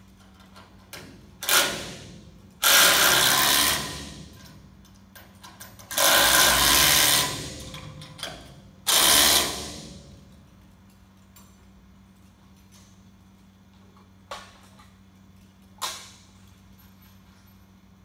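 A power tool driving bolts, run in four bursts of up to about a second and a half each during the first ten seconds, followed by two short clicks later on.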